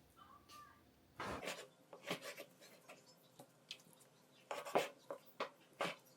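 Kitchen prep sounds: a short scrape about a second in, then scattered knocks and taps of a knife and utensils on a chopping board and bowl while raw chicken is handled.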